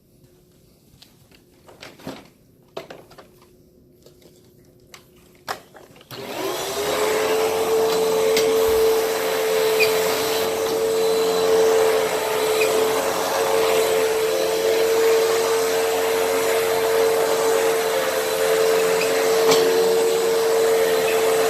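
A few light knocks and clicks, then about six seconds in a Hoover WindTunnel upright vacuum cleaner is switched on: its motor spins up quickly and runs with a steady whine and a strong, even hum to the end.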